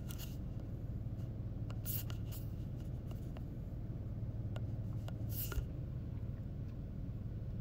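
Steady low room hum, with a few faint, brief scratchy sounds and ticks scattered through it.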